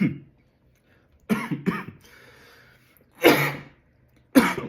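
A man coughing in about five short, sharp bursts, set off by the heat of spicy Thai food.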